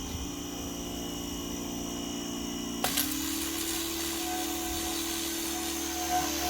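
Pressure washer running with a steady motor hum; about three seconds in there is a sharp click, after which the hum steps slightly higher in pitch and a hiss comes up under it.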